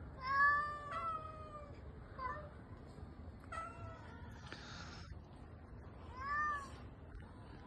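Cats meowing repeatedly, about five drawn-out meows at differing pitches. The loudest comes about half a second in and another near the end.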